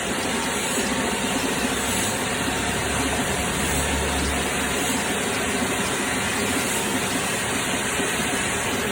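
Drilling machine running while drilling a hole: a steady, even hiss-like machine noise over a low hum.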